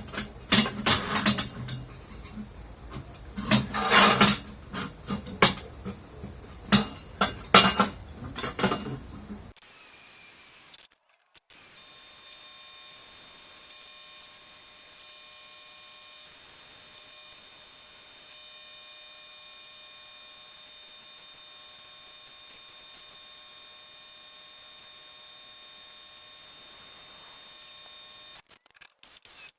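Sharp, irregular metallic taps and clinks of steel flat-bar parts being handled and marked out for drilling, for about nine seconds. After an abrupt cut comes a faint, steady hum made of several fixed high tones.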